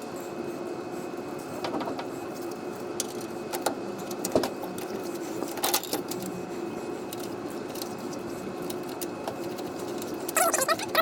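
Scattered metallic clinks of nuts, bolts and hand tools as the air bag bracket hardware is fitted, over a steady hum. A short run of squeaky chirps comes near the end.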